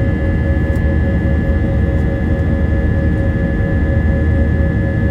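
Cabin noise inside an Airbus A320-232: a steady low rumble from its IAE V2500 turbofan engines and the airflow, with steady high whining tones over it.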